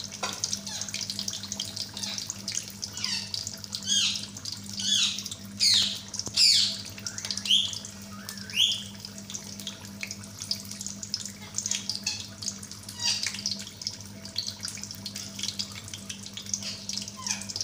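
Spring-roll-style chicken macaroni rolls deep-frying in hot oil, a steady sizzle throughout. A series of short, high, falling chirps between about three and nine seconds in are the loudest sounds, over a faint steady low hum.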